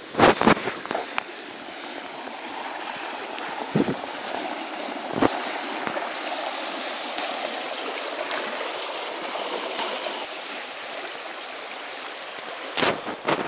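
Grillagh River in spate, rushing steadily over its rocky bed, swollen after a big flood and starting to settle. A few sharp knocks stand out about a second in, twice mid-way and again near the end.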